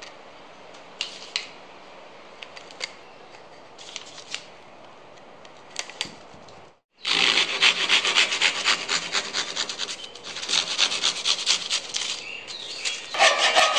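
A fine-toothed handsaw cutting through a wooden dowel in rapid back-and-forth strokes, starting about seven seconds in and louder than anything else. Before that, only faint scattered snaps of rubber bands being stretched around a glued-up stack of wooden rings.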